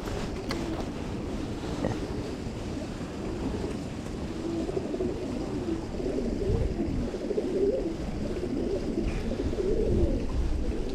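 Wind buffeting the microphone in a low rumble, with a pigeon cooing repeatedly.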